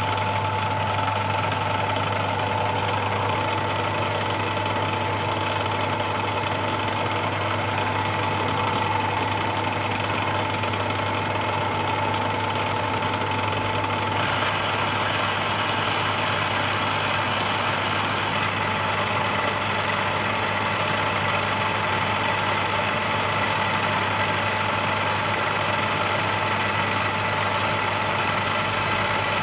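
Milling machine running steadily, a face mill taking a roughing cut across the top of a cast iron straight edge. About halfway through, a set of high whining tones joins the steady hum.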